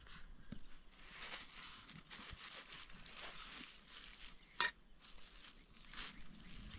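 Crinkling and rustling of a plastic bag and flatbread being handled, with a single sharp click about four and a half seconds in and a softer one about a second later.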